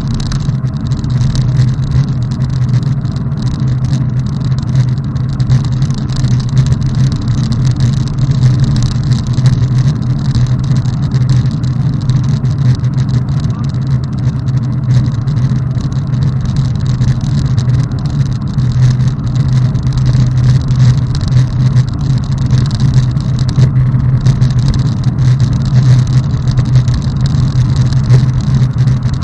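Steady wind rumble on a bicycle-mounted camera's microphone while riding along a road, mixed with the noise of passing motor traffic.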